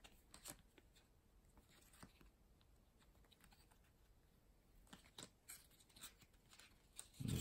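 Faint clicks and soft rustles of NBA Hoops trading cards being flipped through by hand, each card slid off the front of a stack to the back, with the clicks more frequent in the last few seconds.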